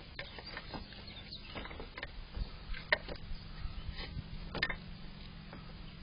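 Irregular crunching and clicking of an animal chewing food close to the microphone, with two sharper cracks about three and four and a half seconds in, over a low steady hum.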